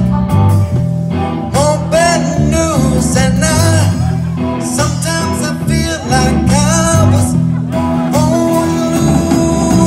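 Live blues-rock band playing an instrumental passage: electric guitar and bass with a lead line of bending, sliding notes.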